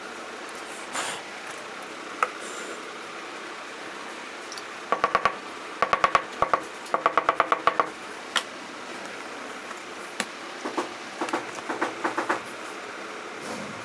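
Quick runs of light, slightly ringing taps, like a small hammer flattening a leather seam on the worktable, several strikes a second, in bursts about five seconds in and again near the end.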